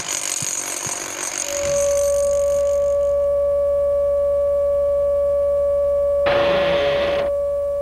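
Television test-card tone: a single steady beep starts about one and a half seconds in and holds. Near the end it is overlaid by a burst of hiss about a second long, like TV static. Before the tone, the start is noisy with a few knocks.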